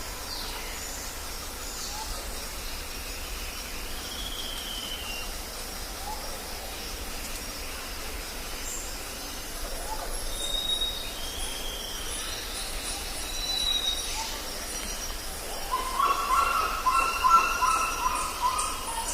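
Jungle ambience: a steady hiss of insects with scattered short whistled bird calls that slide in pitch. From about three-quarters of the way in, a louder warbling call repeats for a few seconds.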